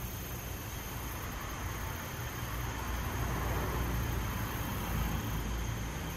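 Fire burning in a jar of peanut butter, a steady rushing noise with a low rumble that swells between about three and five seconds in.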